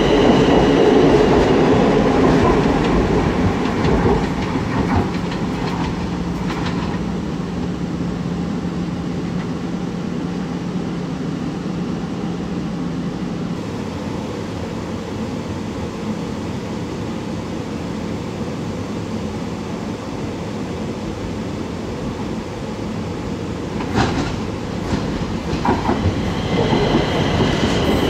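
Electric metro trains at a platform: one pulls out with a high steady motor whine and rumble that fades over the first few seconds. Near the end another runs in, with a few sharp clicks of wheels over rail joints, then the rising rumble and motor whine of its approach.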